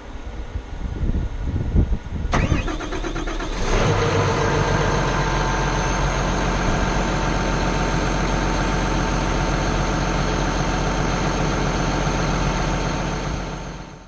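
Bulldozer's diesel engine cranking over, catching about three and a half seconds in, then running steadily. It cuts off abruptly near the end.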